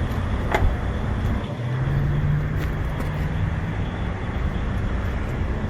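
Semi truck's diesel engine idling with a steady low rumble, with a single click about half a second in.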